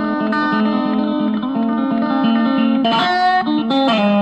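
Guitar-led background music, with notes changing in quick succession. A fuller chord comes in about three seconds in and again near the end, followed by a held note that wavers in pitch.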